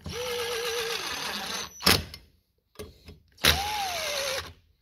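Electric screwdriver running twice, about 1.8 s and then about 1 s, with a whine, driving the screws of a Stihl FS 110R trimmer's clamshell crankcase down snug. A sharp click comes just under two seconds in.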